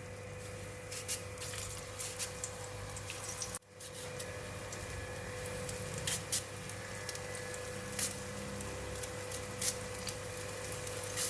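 Thin slices of arrowhead deep-frying in hot oil in a stainless-steel wok: a steady sizzling hiss with frequent crackling pops, over a steady low hum. The sound drops out briefly about three and a half seconds in.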